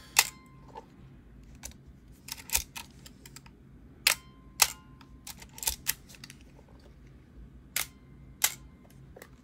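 A Fujica AX-1 35 mm SLR camera being handled and its controls worked: about a dozen sharp mechanical clicks at irregular intervals, with quiet between them.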